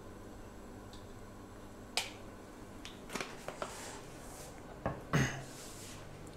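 Scattered clicks and clatter of kitchen items being handled on a counter, with a louder knock about five seconds in.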